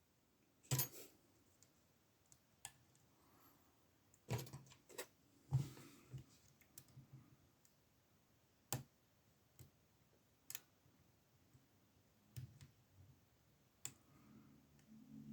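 Faint, scattered metallic clicks and scrapes of a lock pick and tension tool working inside a SIL 30 mm padlock, a click every second or two at irregular spacing.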